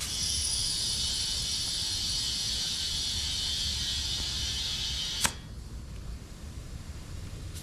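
Compressed air from an air hose chuck hissing steadily into a zero-turn mower tire as it is inflated toward about 8 psi. The hiss stops after about five seconds with a sharp click as the chuck comes off the valve.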